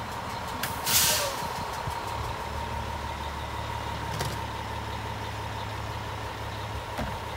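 Front-loader garbage truck stopping at the curb: a short, loud air-brake hiss about a second in, then the engine idling steadily.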